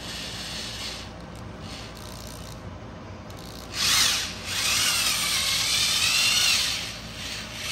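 A corded Ryobi drill turning the PPI injector bore kit's bit in a BMW N54 cylinder head, cutting out an ovaled injector bore so an insert can be fitted. It runs lighter at first, then gets louder about four seconds in, with a wavering high whine as the bit bites into the metal.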